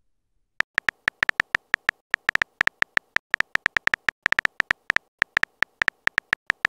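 Phone keyboard typing sound effect: a rapid, irregular run of short ticks, one per keystroke, as a text message is typed out; the ticks start about half a second in.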